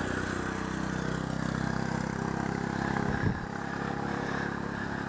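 Vehicle engine running steadily under way at cruising speed, with one short knock about three seconds in.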